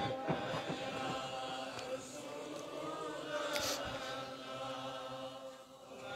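A congregation chanting salawat on the Prophet together in drawn-out unison, faint beneath the pauses of the sermon.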